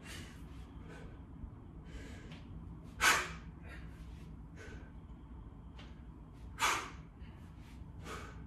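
A man's short, sharp breaths, twice, about three seconds in and again near seven seconds, made with the effort of a dead-stop kettlebell swing. Between them a few faint ticks sit over a low room hum.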